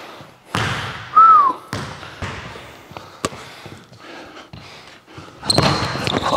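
A basketball bouncing on a hardwood gym floor, with a single sharp sneaker squeak about a second in. Near the end comes a busier, louder run of bounces and shoe scuffs as play starts up again.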